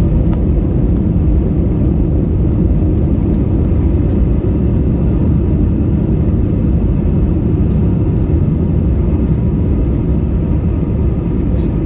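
Steady low rumble inside the cabin of an Airbus A320, engine and airflow noise heard from a passenger seat.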